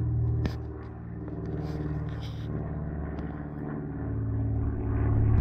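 Airplane flying overhead: a steady low drone that grows louder toward the end.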